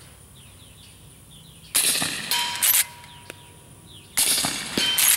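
Two shots from a suppressed Henry .357 steel lever-action carbine firing subsonic hand loads, about two and a half seconds apart. Each muffled report is followed about half a second later by the clatter of the lever being worked, which is louder than the report itself.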